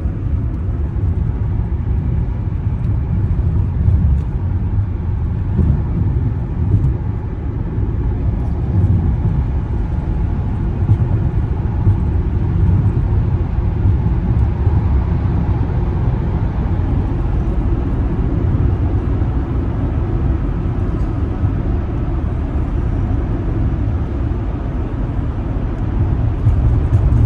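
Honda Accord V6 being driven at a steady pace: a continuous low rumble of engine and road noise. The engine runs normally, with no felt or heard stumble from its sporadic cylinder misfires.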